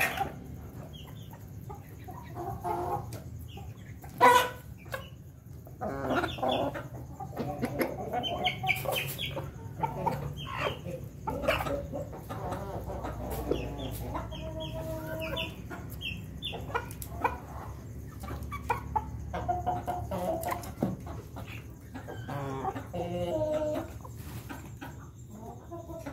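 A flock of chickens, including an ayam ketawa (laughing chicken) rooster, clucking in many short calls while feeding. A sharp knock about four seconds in is the loudest sound.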